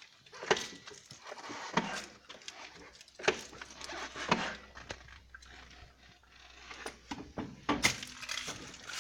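BMW F800GS being pushed while in gear, giving a series of sharp knocks or clunks every second or two: the unexplained noise the owner hears whenever the bike is pushed in gear.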